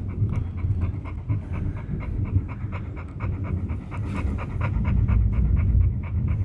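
Big pit bull panting fast and steadily, the quick even breathing of a dog frightened by a thunderstorm, with a low rumble underneath that swells about five seconds in.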